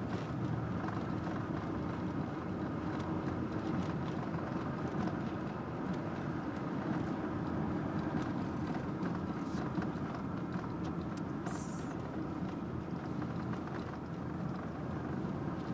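Minivan driving, with steady road and engine noise heard from inside the cabin.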